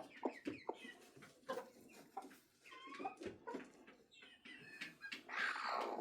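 Broody hen making short falling calls and clucks on her nest, among scattered small knocks and rustles, with a louder noisy burst near the end.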